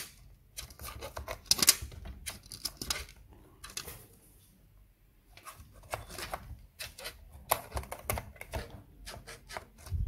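Rapid clicks and crinkles of a laptop's thin black plastic insulating sheet being lifted and a DDR4 SODIMM RAM module being handled in its slot, with a short quiet pause around the middle.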